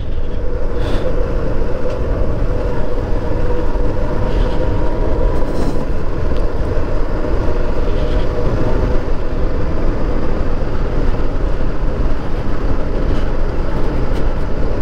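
Motorcycle riding on the road, recorded from a helmet-mounted camera: steady wind rumble over the microphone with the engine running underneath.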